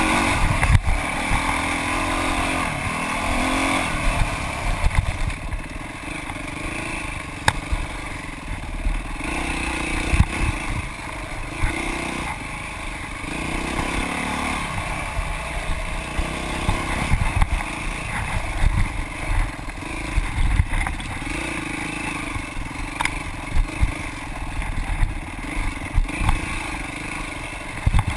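Dirt bike engine revving up and falling off again and again as the bike is ridden hard along a rough trail, with knocks and rattles from the bike over the bumps.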